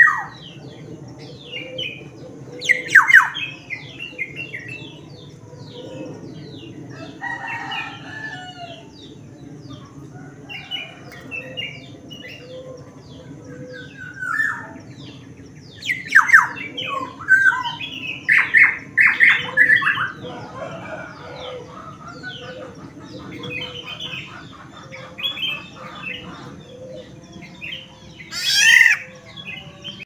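Caged black-naped oriole (Sumbawa kepodang) calling busily: loud clusters of falling notes a few seconds in, in a long run about midway and once more near the end, over steady quieter chattering calls.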